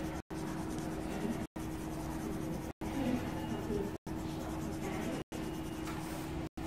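Colored pencil scratching on paper as it colors, over a steady low hum; the sound cuts out completely for an instant about every second and a quarter.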